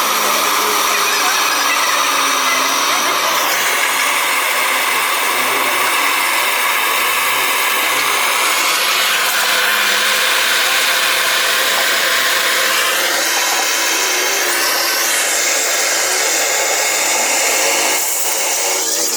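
Steady, loud hissing rush of blowing air, shifting slightly in tone a few times.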